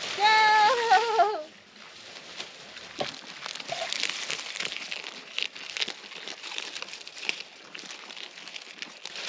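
A goat bleats once, a wavering call lasting over a second, then goats chew and tug at dry corn stalks and leaves, with steady irregular crackling and rustling of the dry husks.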